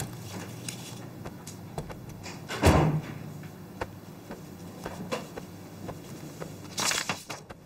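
Scattered light knocks and clicks with one heavier thump about three seconds in and a short rustle near the end, like a door or cupboard being handled.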